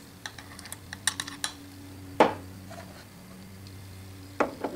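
Cast-iron compound rest of a South Bend 9-inch lathe being picked up and handled: a run of light metallic clicks and taps, one sharper clack about two seconds in, and a few more knocks near the end. A faint steady hum lies underneath.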